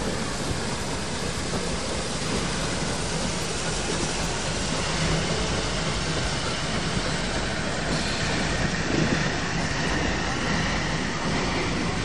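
Narrow-gauge steam train, hauled by NA-class locomotive 12A, running along the line: a steady rumble and rattle of wheels and carriages.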